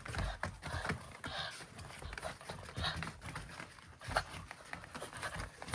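French bulldogs playing: irregular patter, scuffles and knocks of paws and toys on a hard floor.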